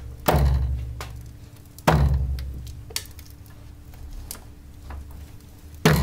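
Worn rubber strut mount of a shock absorber knocking with the car stationary: three heavy thunks, about a third of a second in, about two seconds in and near the end, each dying away. The mount's rubber is worn to the point that metal strikes metal.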